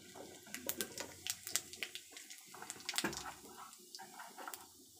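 Whole cumin seeds sizzling in hot oil, with many irregular small crackles as they fry at the start of a spice tempering.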